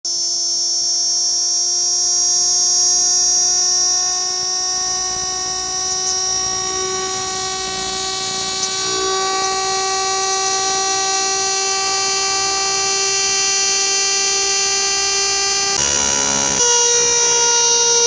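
Cicada calling: one loud, steady whine with its pitch creeping slightly upward. About sixteen seconds in it breaks up briefly, then carries on at a higher pitch.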